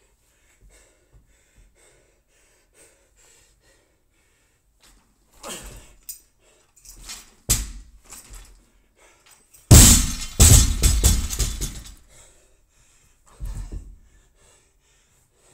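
Loaded barbell with bumper plates dropped onto the gym floor about ten seconds in, landing with a loud clatter and bouncing and rattling for a couple of seconds. Softer thuds come before and after it.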